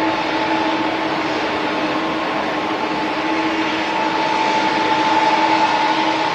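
Airbus A350-900's Rolls-Royce Trent XWB turbofans at take-off thrust during the initial climb: a steady rushing jet noise with a low hum and a higher whine, growing a little louder about four seconds in.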